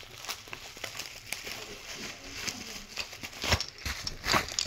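Handling noise of unboxing: light crinkling and clicking of packaging, with a couple of louder knocks near the end.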